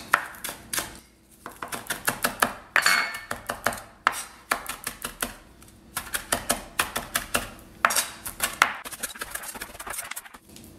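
Large chef's knife chopping parsley very fine on a plastic cutting board: quick runs of blade strikes, several a second, broken by brief pauses.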